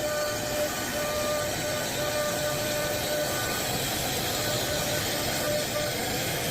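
Woodworking machine running steadily with a hiss, and a mid-pitched whine that breaks off every second or so and comes back.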